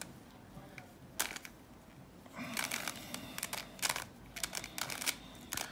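Plastic Bermuda Uranus twisty-puzzle cube being turned by hand: short plastic clicks and clacks as its faces are twisted. There is a single click about a second in, then quick clusters of clicks from about halfway on.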